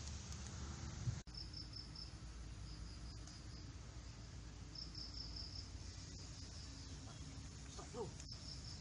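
Insects chirping in short runs of rapid, high-pitched pulses that come and go several times, over a steady low background of outdoor noise, with a few faint clicks.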